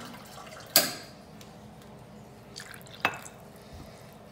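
Kitchenware clinking while milk and water are poured into pancake batter: a sharp clink about a second in, then a second clink about three seconds in that rings briefly, like a ceramic cup knocking against the mixing bowl and being set down on the granite counter.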